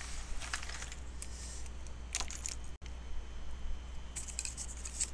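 Pens and markers being picked up and handled on a desk: a few light clicks and rattles of plastic pen bodies, over a steady low hum.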